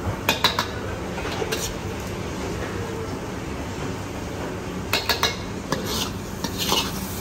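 Short clinks and clatters of cooking utensils and dishes, in a few quick clusters, over a steady low background hum.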